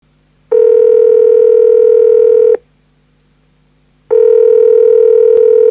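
Telephone ringback tone: a loud, steady, single-pitched tone rings for about two seconds, stops, then rings again. This is the line ringing before an automated phone menu answers.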